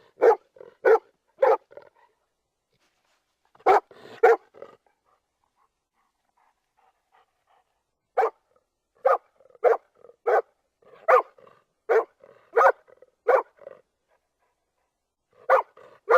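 Golden retriever barking in short separate barks: a quick run of about four, then a pair, a pause of a few seconds, then an evenly paced run of about eight barks, and two more near the end.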